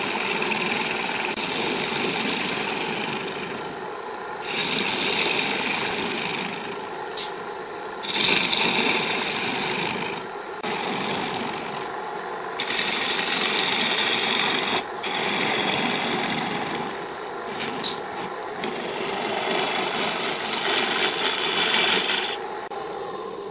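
A gouge cutting the face of a spinning wooden platter on a small benchtop wood lathe: a scraping hiss of the cut that comes in passes of one to three seconds with short lulls between, over a steady hum.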